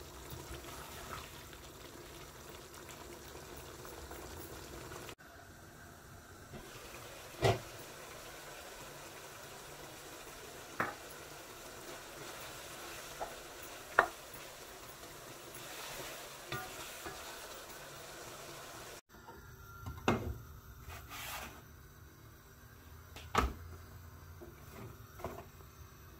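Wooden spoon stirring a thick curry in a non-stick pot over a low, steady sizzling hiss, with a handful of sharp knocks spread through.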